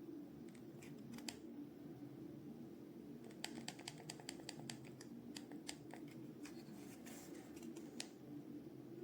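Small sharp clicks: a couple about a second in, a quick irregular run of about a dozen from about three and a half to six seconds in, then a few more near seven and eight seconds, over a faint steady room hum.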